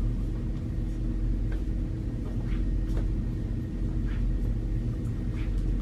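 A steady low rumble with a constant low hum, and a few faint, light taps of footsteps on a hard floor.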